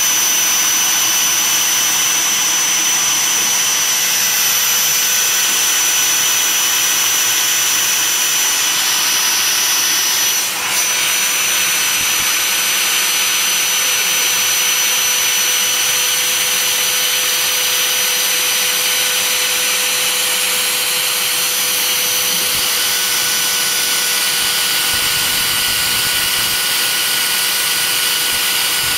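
Homemade CNC router's spindle running at speed with a steady high whine as its bit mills pockets into a white sheet, the cutting adding a rough hiss. The sound dips briefly about a third of the way in.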